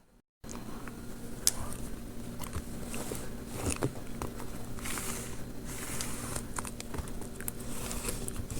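Paper being handled: rustling and crinkling with many small clicks and taps, over a faint steady hum.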